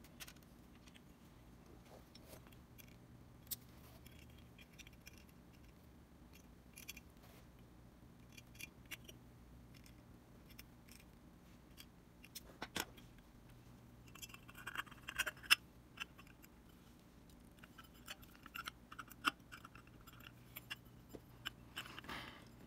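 Small metal parts and hand tools clicking and scraping during delicate bench work: scattered sharp ticks, with short bursts of light metallic rattling around the middle and near the end.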